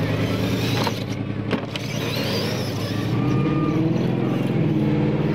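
Radio-controlled scale monster truck running on gravel, its drive making a steady drone that climbs in pitch after about three seconds. Two sharp knocks come about a second and a second and a half in.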